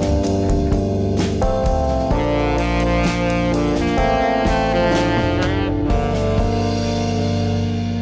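Background music: guitar with a drum kit keeping a beat, ending on a held chord that rings out over the last second or two.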